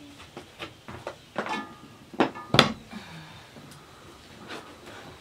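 Large metal cooking pot and its lid clanking as the pot is lifted off the stove and set down on the floor: a string of knocks with brief metallic ringing, the loudest two about halfway through.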